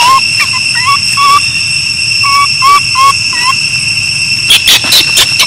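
Baby macaque whimpering in short, high-pitched coos, two runs of about four calls with a pause between, the sound of an infant monkey complaining. A few crackling sounds come near the end.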